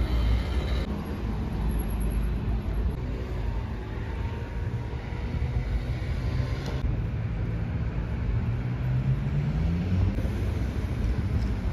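City street traffic: motor vehicles running and passing, with one engine rising in pitch as it accelerates in the last few seconds.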